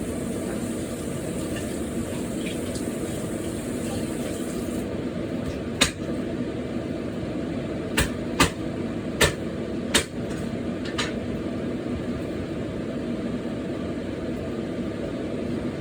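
Kitchen sounds during cooking: a steady low hum, and about six sharp knocks between six and eleven seconds in, like utensils striking a pan or dish.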